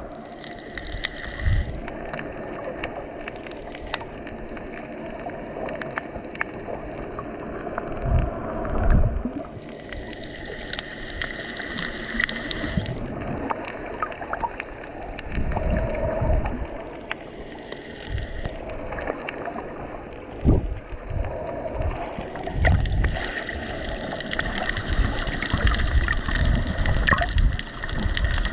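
Muffled underwater water noise: a steady wash and gurgle with many small clicks and crackles, and low thuds now and then, loudest in the last few seconds.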